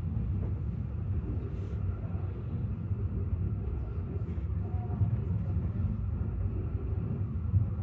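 Steady low rumble of the Fløibanen funicular car running downhill on its rails, heard from inside the car.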